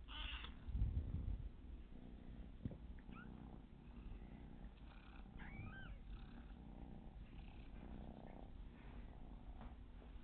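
A domestic cat purring, a low steady purr that swells loudest about a second in. A few short, high chirps come through about three and five and a half seconds in.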